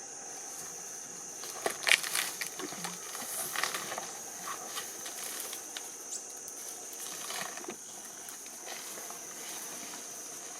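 Steady high insect drone, with scattered crackles and rustles throughout. The loudest crackle comes about two seconds in.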